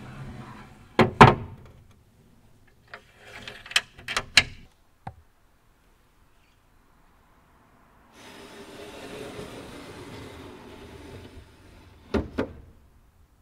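Wooden sliding window panels running in their tracks: one slides and knocks shut twice about a second in, a run of small clicks follows as the meeting doors are latched, then another panel slides for about four seconds and bumps shut with two knocks near the end.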